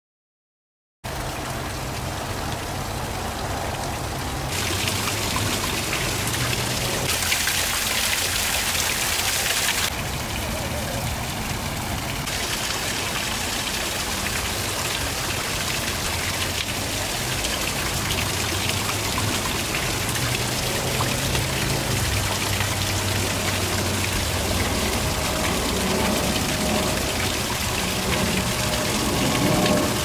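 Small waterfall splashing down a rock grotto into a pool: a steady rush of falling water. Over the first dozen seconds the sound changes abruptly a few times, as the water is heard from different spots.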